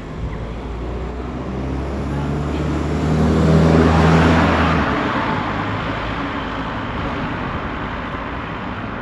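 A motor vehicle passes close by on the street: a low engine hum and tyre noise swell to a peak about four seconds in, then fade away.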